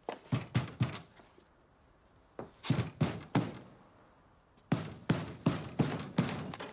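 Knocking hard on a large wooden double door: three bouts of rapid knocks, about four, then four, then six, with short pauses between. The knocking is loud enough to draw a complaint about the racket.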